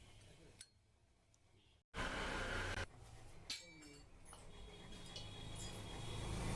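Light metallic clinks and knocks of tools and engine parts being handled, broken by an abrupt cut about two seconds in, after which a louder stretch of noise and more scattered clinks follow.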